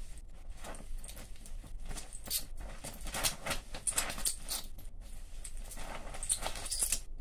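Oxy-propane welding torch flame hissing as a welding rod is melted in it, with irregular crackling and popping as sparks fly. The hiss and crackle break off just before the end.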